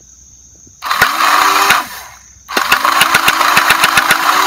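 Custom Nerf Rival blaster with Zeus flywheels and a Rapidstrike pusher firing full auto in two bursts, a short one about a second in and a longer one from about two and a half seconds. Each burst opens with the flywheel motors whining up, then the pusher clatters as balls fire at about seven shots a second. Insects trill steadily underneath.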